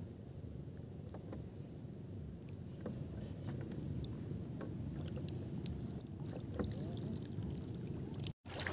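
Faint sloshing and lapping of shallow seawater around people wading, a steady low wash with small scattered splashes, and a short dropout near the end.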